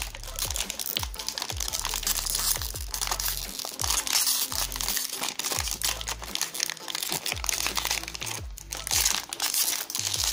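Foil-lined plastic pouch of an inkjet cartridge being crinkled and torn open by hand, in quick irregular crackles. Background music with a deep, repeating bass plays underneath.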